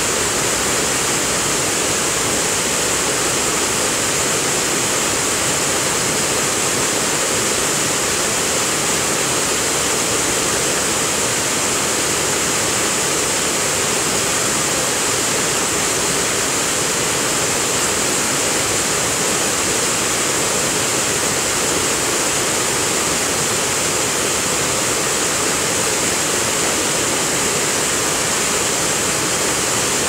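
Waterfall plunging into a rocky pool: a loud, steady, unbroken rush of falling water.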